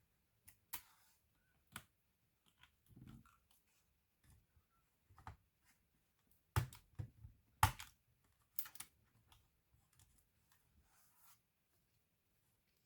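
Irregular light clicks and knocks of a laptop's plastic casing and small parts being handled by hand, with a few louder knocks about halfway through.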